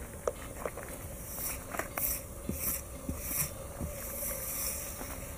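Dry fallen leaves rustling and scraping in a series of short bursts as they are brushed by hand across a wooden information board, with a few light taps.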